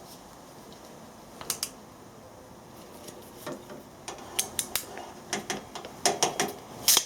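Ratchet crimping tool clicking notch by notch as it is squeezed shut on an insulated butt-splice crimp: two clicks about a second and a half in, then a quicker, uneven run of clicks over the last three seconds.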